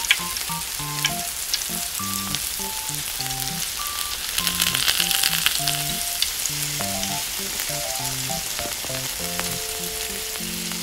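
Hot oil sizzling and crackling steadily as a small crumb-coated cheese ring deep-fries in a miniature saucepan. A simple background melody plays underneath.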